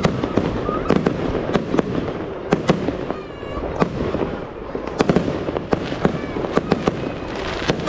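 Aerial fireworks display: a rapid, irregular series of shell bursts and bangs over a continuous crackle.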